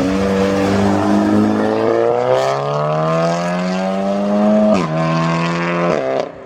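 Modified car accelerating hard away, its engine note climbing steadily through one gear. The note then drops sharply at a gear change near the five-second mark, climbs again and drops at a second shift near the end, with a few sharp pops along the way.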